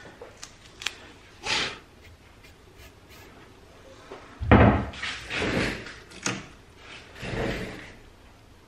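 Handling noises: a few light clicks, then a heavy thump about four and a half seconds in, followed by a couple of rustling swishes.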